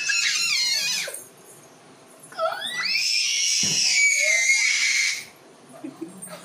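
Baby girl squealing in high-pitched, wavering cries: one breaks off about a second in, then after a short pause a longer squeal rises and holds for nearly three seconds.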